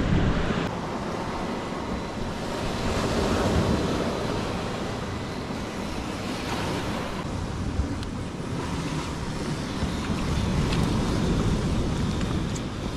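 Waves washing against a rocky shore, swelling and easing in slow surges, with wind buffeting the microphone. A few faint ticks sound in the second half.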